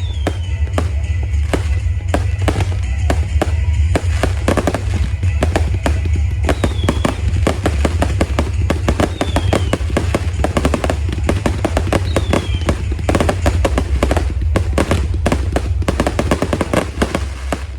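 Fireworks crackling and popping in rapid, dense strings over loud music with a heavy steady bass, with a few short falling whistles through it.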